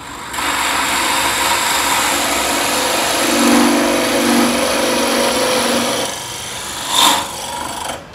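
Pillar drill running as its bit bores into a small block of wood, getting louder about a third of a second in, with a deeper note from about three to six seconds in while the bit cuts. A sharp knock about seven seconds in.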